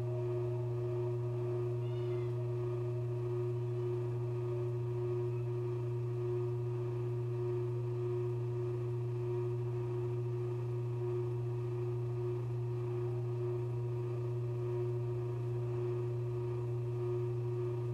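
Background drone music: a steady, unchanging low hum with a sustained higher tone over it, like a singing bowl held ringing.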